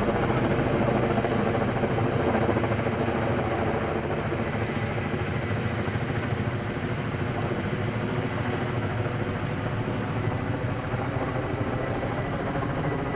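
Helicopter running steadily with a fast rotor chop, easing slightly quieter over the span; typical of a firefighting helicopter working a forest fire.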